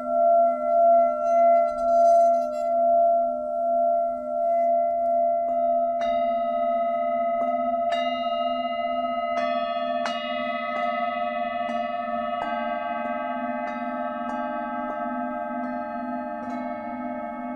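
Tibetan singing bowls ringing: first a long held tone that pulses slowly in loudness, then from about six seconds in several bowls struck one after another, their tones overlapping into a layered ring.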